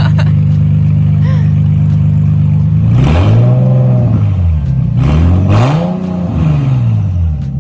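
Nissan 370Z's 3.7-litre V6 idling, then revved twice, each rev rising and falling over about two seconds before it settles back to idle.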